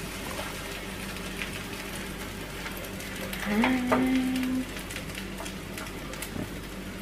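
Food frying in a pan on a gas hob, a steady sizzle with fine crackling. About three and a half seconds in, a voice holds one note for about a second.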